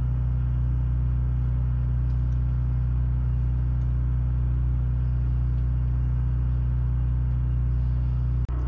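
A steady low machine hum, unchanging in pitch and level, with a brief dropout near the end.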